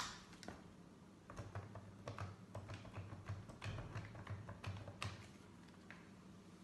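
Irregular light clicks and taps, like typing on a keyboard, over a faint low hum. A sharper knock comes right at the start, and the clicks stop about five seconds in.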